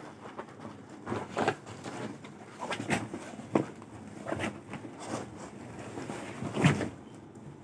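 Pleated lehenga fabric rustling and swishing as it is shaken and turned over by hand, in a string of irregular swishes with a sharp click about halfway, the loudest swish near the end.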